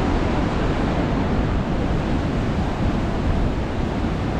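Heavy surf from a big ocean swell rolling and breaking against the rocks, a steady roar, with wind buffeting the microphone.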